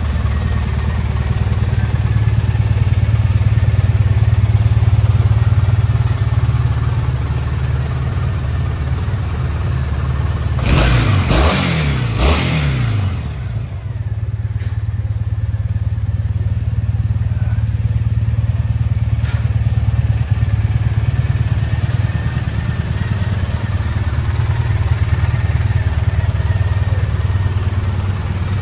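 Triumph Bonneville T100's parallel-twin engine idling steadily, revved briefly a couple of times near the middle, the pitch rising and then falling back to idle.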